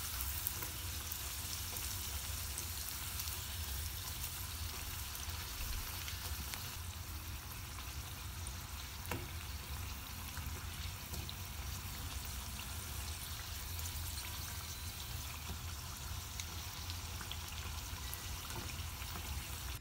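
Hot oil sizzling steadily around stuffed flour pastries (irachi pathiri) deep-frying on medium flame, with fine crackles throughout.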